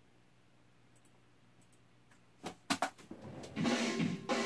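Near silence, then from about two and a half seconds in, a recorded drum kit playing back over studio monitors. It is the stereo ribbon room mics alone, heavily compressed with API 2500 compressors, which brings out a lot more of the room ambience.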